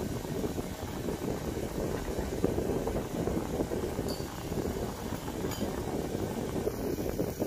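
A hand screwdriver turning screws into the wooden rocker of a toy rocking horse, with a couple of faint clicks, over a steady low rumbling background noise.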